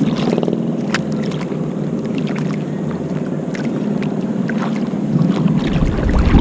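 Water sloshing and splashing around a paddleboard as it is paddled, with short splashes from the paddle blade. Wind buffets the microphone near the end.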